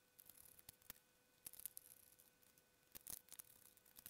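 Small screwdriver turning screws into a plastic console case: faint scratchy ticks and clicks in short clusters, the loudest about three seconds in.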